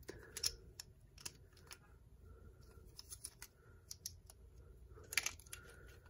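Faint, irregular plastic clicks and rattles of a Beyblade's parts being turned and snapped together by hand, with a louder cluster of clicks about five seconds in.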